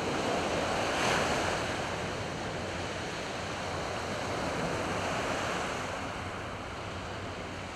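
Surf washing onto the beach: a steady rush of waves that swells about a second in and then slowly eases.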